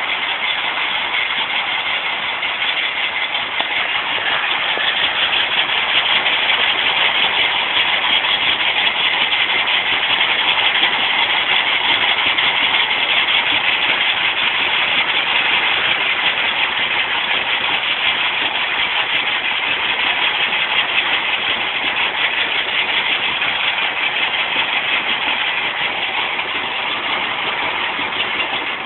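Stone crusher machine running: a steady, loud mechanical din with a fast rattling texture that swells a little louder through the middle and eases off near the end.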